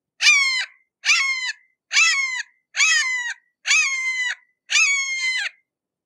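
Red-shouldered hawk calling: six calls in a steady series, about one a second, each dropping in pitch at its end.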